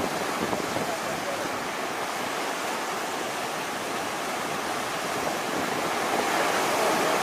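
Seawater rushing and breaking over the bow of a submarine running on the surface, with wind on the microphone, as a steady rush.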